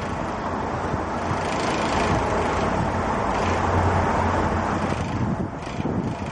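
Steady rushing wind noise over a low rumble, swelling a little near the middle.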